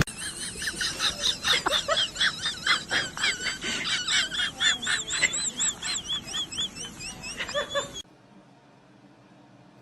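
Birds chirping: many high, wavering chirps overlapping in quick succession, cutting off abruptly about eight seconds in, followed by faint background hum.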